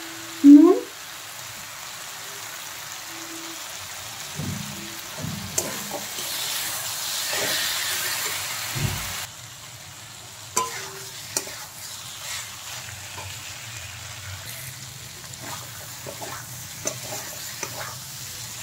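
Potatoes and bean seeds in masala sizzling in a metal kadai while a steel spatula stirs and scrapes the pan, with scattered clicks of the spatula against the metal. The sizzle swells for a few seconds midway. There is a brief loud rising squeak just after the start.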